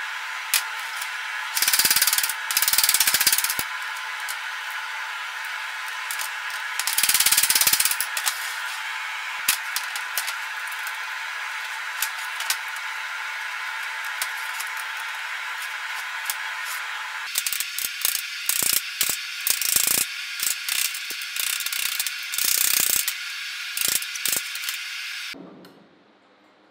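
Steady roar of a propane forge burner under clusters of hammer blows and clanking on hot steel flat bar as it is bent over a steel mandrel. The loudest bursts of blows come about two and seven seconds in, with a run of separate knocks in the second half, and everything cuts off suddenly near the end.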